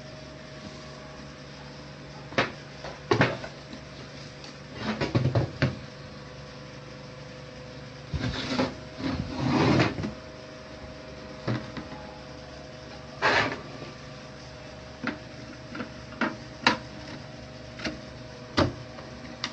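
Scattered clicks and knocks from objects being handled, with a longer stretch of rustling and scraping about eight to ten seconds in, over a steady low electrical hum.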